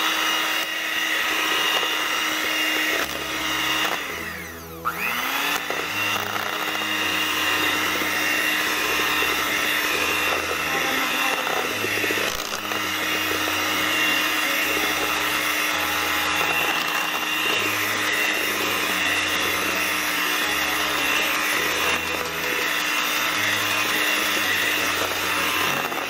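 Electric hand mixer running steadily, its beaters whipping a thick cream-based ice cream mixture in a bowl. About four seconds in, the motor briefly winds down and then speeds back up to its steady whine.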